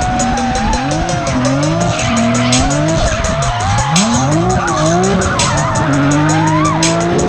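Nissan 350Z's V6 engine revving up and dropping back several times while drifting, with the tyres squealing throughout, and music with a steady beat underneath.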